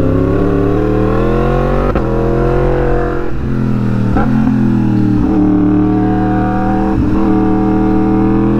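Yamaha MT-10's crossplane inline-four engine with an SC-Project exhaust, ridden hard through bends. The note climbs in several pulls, each cut by a brief break where the pitch drops, as under gear changes and throttle changes.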